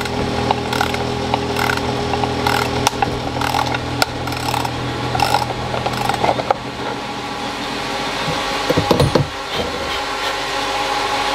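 Metal lathe running with a steady hum of several tones while the spigot is cut into the turbine's metal boss, with short gritty cutting scrapes repeating through the first half and a louder clatter about nine seconds in.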